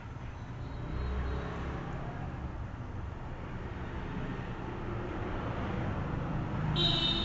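Steady low background rumble like road traffic, with a brief high-pitched tone near the end.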